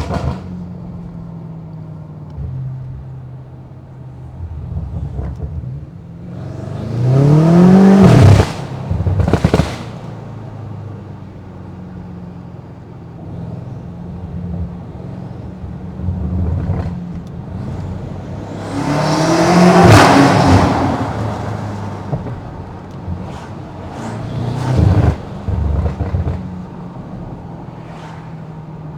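Stage 2 tuned BMW M8 Competition's twin-turbo V8 cruising, then making two hard full-throttle pulls with the engine note climbing, each cut off abruptly. A few shorter throttle surges come near the end.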